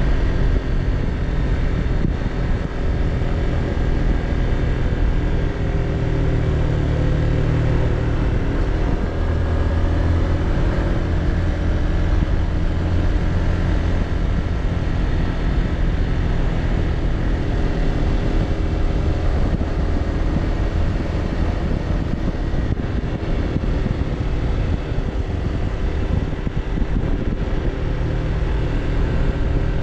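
Motorbike engine running steadily at road speed, heard from the rider's seat, with a continuous rushing noise from the ride.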